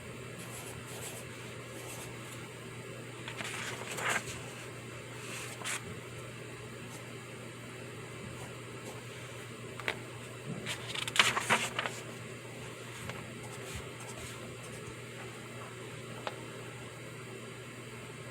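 Pencil scratching on paper in short spells, around four seconds in and again for about a second and a half just past the middle, over a steady room hum and hiss. A few light single taps are heard between the spells.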